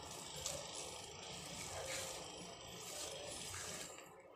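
A spatula scraping and stirring a thick, crumbly mixture of grated paneer and milk powder around a kadhai, in repeated rasping strokes.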